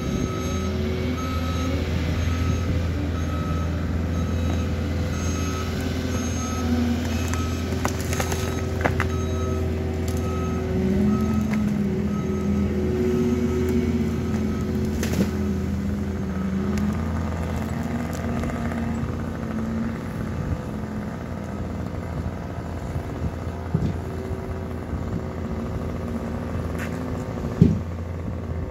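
An engine running steadily, its pitch wavering up and down for a stretch, with a faint repeating high beep and a sharp knock near the end.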